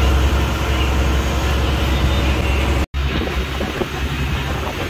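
Steady low drone of a fishing boat's engine running, with a broad wash of wind and sea noise; the sound drops out for an instant about three seconds in and comes back with a lighter drone.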